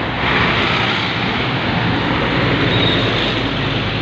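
Loud, steady road noise from heavy trucks passing close by on a highway: engines and tyres, swelling as a truck goes past just after the start.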